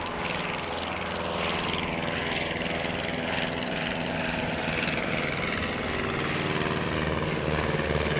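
Piston engines of replica First World War biplanes passing overhead in formation, propellers turning, with a steady running note that grows gradually louder.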